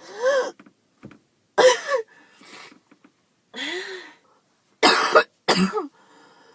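A girl coughing repeatedly: about five coughs in short bouts, some with a brief pitched catch of the voice, from a cough that makes her chest hurt.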